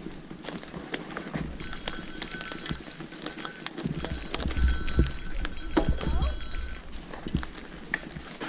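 Rigid-frame gravel bike rolling over rough ground of pine needles, sticks and crusted snow: the tyres crunch, and the frame and parts rattle and knock over the bumps.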